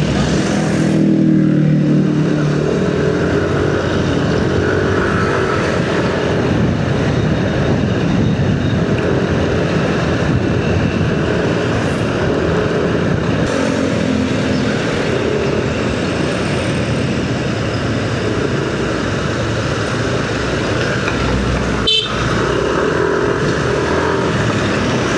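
Riding a motorcycle in traffic: steady engine, wind and road noise, with other vehicles' engines going past. A deeper engine note stands out in the first couple of seconds, and there is a brief knock about 22 seconds in.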